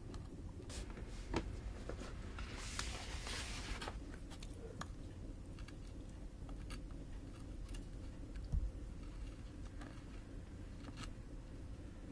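Small carving knife cutting into a cherry-wood printing block, scoring both sides of the drawn lines: scattered faint ticks and light scratches of the blade in the wood, with a longer scraping cut about three seconds in.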